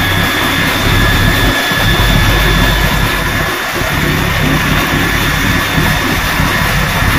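Finned electric motor belt-driving a car alternator, running steadily with a low hum and a high whine, mixed with the crackle of a stick-welding arc.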